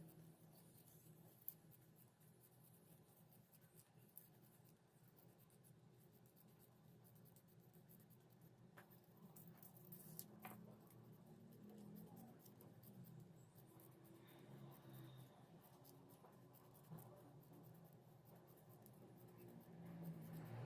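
Near silence with faint scratching and a few light clicks of hands working thin plastic sheet and tape in kite-hummer craft work.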